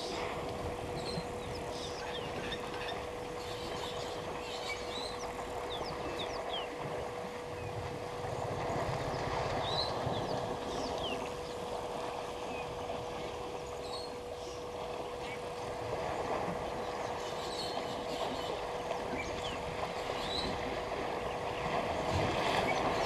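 Water sloshing and splashing as a herd of African elephants wades through a shallow dam, swelling about nine seconds in and again near the end. Short high bird chirps come now and then, over a steady hum.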